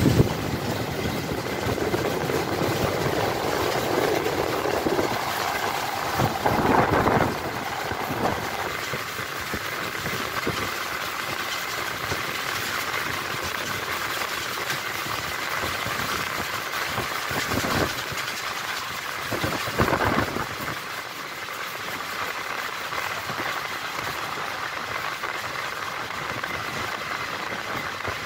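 Passenger train running on the rails: a steady noise with a faint whine throughout and a few louder clunks, about a third of the way in and twice more near two-thirds of the way through.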